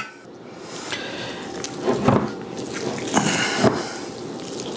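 Hands grabbing and squishing wet ground sausage meat in a bowl, with a few sharper squelches about two and three and a half seconds in.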